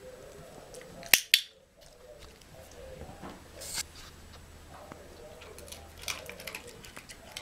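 A dog-training clicker clicks twice in quick succession about a second in, marking the moment the ball lands in the egg cup. Softer rustles and light ticks follow later.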